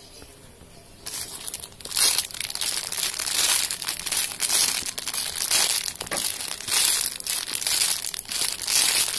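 Clear plastic bag around a squishy toy crinkling steadily as it is handled, starting about a second in.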